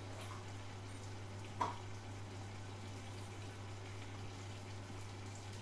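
Mussels simmering in a little water in a frying pan: a faint steady bubbling hiss under a constant low hum, with a single sharp click about one and a half seconds in.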